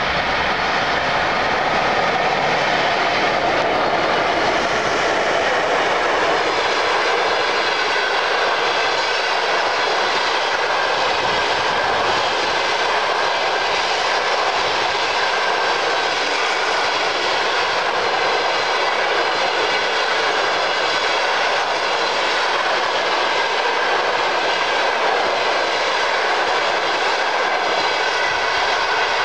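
Passenger train coaches passing at speed: a steady rush of wheel-on-rail noise, with faint high ringing tones above it.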